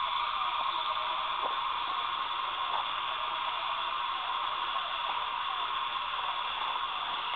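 Steady high-pitched buzzing drone, with faint short chirps mixed in.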